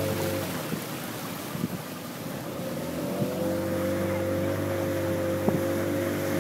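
Motorized canoe's outboard motor running; its note drops away about half a second in and picks back up about three seconds later.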